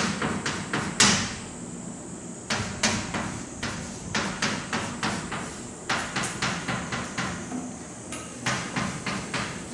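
Writing on a board: an irregular run of sharp taps and short scraping strokes as a formula is written out.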